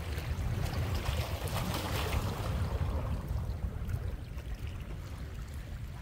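Strong wind buffeting the microphone: a gusting low rumble with a hiss over it that eases off about halfway through.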